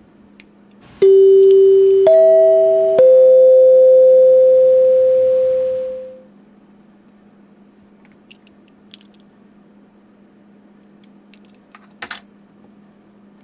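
A three-note chime: a low note, a higher one about a second later, then a middle one a second after that. Each starts sharply, and they ring on together and fade out over a few seconds. A brief sharp click comes near the end.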